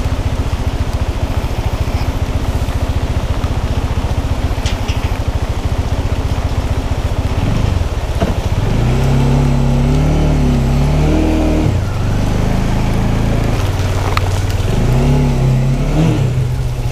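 Single-cylinder motorcycle engine idling with a fast, even beat, then revving up and down as the bike pulls away and rides off slowly, from about eight seconds in.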